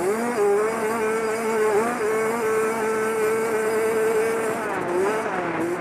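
Dirt bike engine running hard at high revs. The pitch dips and climbs again right at the start, holds high for about four seconds, then falls near the end.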